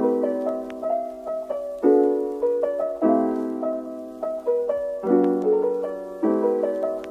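Background instrumental music, chords struck every second or two and left to fade.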